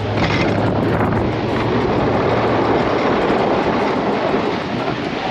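Snow plow truck pushing heavy, slushy snow: a steady low engine drone under a dense rushing, scraping noise from the plow blade and the snow.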